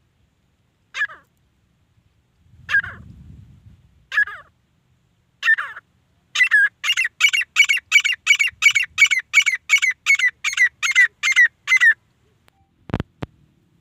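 Grey francolin (desi teetar) calling: four single notes a second or so apart, then a fast run of loud repeated calls, about three a second for some five seconds. Two sharp knocks follow near the end.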